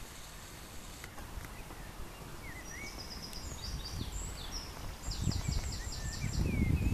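Wild birds singing: scattered high chirps, then a fast trill of about eight repeated notes about five seconds in. Low thuds and rumble come in near the end.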